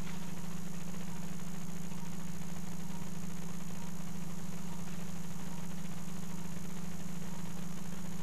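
Steady low hum that holds the same pitch and level throughout.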